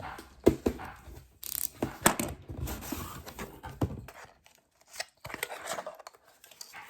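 Packaging being torn open and rustled by hand, with irregular knocks and clicks from handling the item inside.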